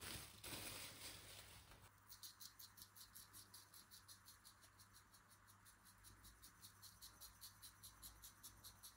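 Faint, rapid, evenly spaced ticking, about five ticks a second, like an insect chirping. It follows a brief rustle at the very start.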